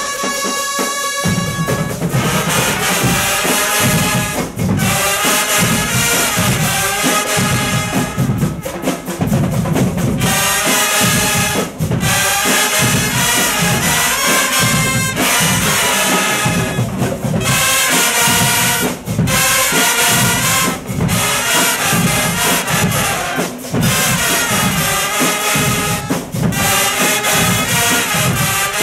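Marching band playing a brass tune, trumpets and other brass over a steady drum beat, with brief breaks between phrases.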